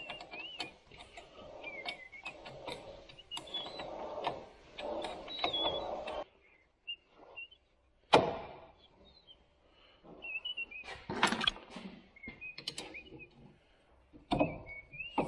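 Hand tools working on a car's front drum-brake assembly: a spanner clicking and scraping against metal as the brake wheel cylinder is unbolted, with one sharp metal clank about eight seconds in and a quick run of clicks a few seconds later.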